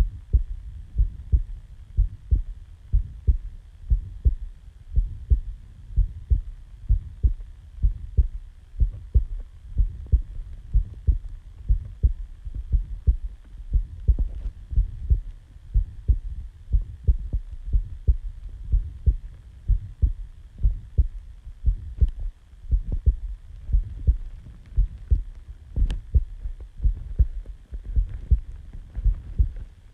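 Human heartbeat recorded close up, at rest just after waking from sleep: a steady, regular rhythm of short, low thumps with a faint hum beneath.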